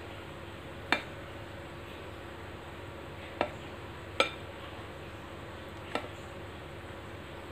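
A small ladle clinking against cookware while thick batter is spooned into a kue lumpur mould pan: four light knocks with a brief ring, spread over several seconds, two of them close together in the middle.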